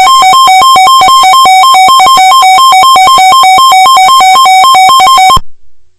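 Emergency alert attention tone: a loud, buzzy electronic tone that switches rapidly between a high and a low pitch, about four high-low cycles a second. It signals that an emergency alert, here a snow squall warning, is about to be read. It cuts off suddenly about five and a half seconds in.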